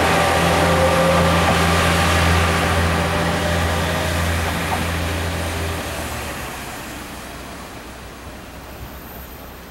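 KiHa 40-series diesel railcar pulling away, its diesel engine running with a steady low drone. The drone drops away about six seconds in, and the sound fades as the train moves off.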